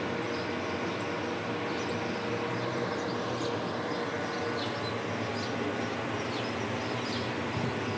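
Steady engine noise of a diesel freight locomotive running, with birds chirping high above it.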